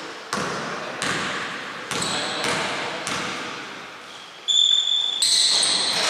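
A basketball bouncing on the wooden court, about five separate bounces in the first three seconds, each ringing out in the echo of a large hall. From about four and a half seconds in, louder high-pitched squeaks take over.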